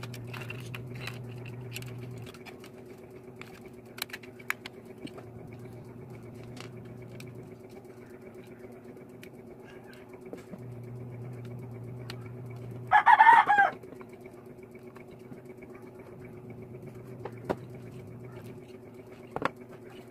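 A chicken calls once, a short pitched call about two-thirds of the way in, the loudest sound here. Under it runs a steady low electrical hum that comes and goes in stretches, with faint clicks of handling.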